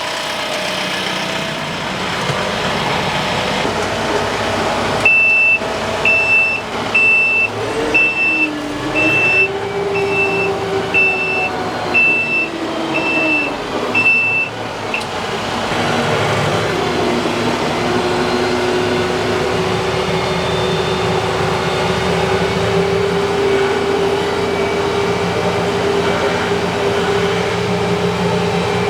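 TYM T754 tractor's Deutz diesel engine running while being manoeuvred into a parking spot, its pitch rising and falling. A reverse alarm beeps about once a second for ten beeps partway through as the tractor backs up, then the engine settles to a steady run.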